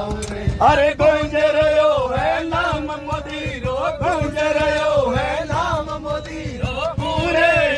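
A group of men singing a folk bhajan-style tune together in held, chant-like phrases, with hand-clapping keeping the beat.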